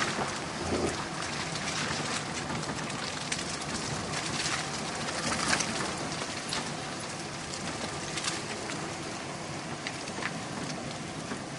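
Chevy 4x4 pickup driving slowly along a stony dirt trail: a steady hiss of tyre and road noise with many small scattered crackles from the tyres rolling over gravel and grass.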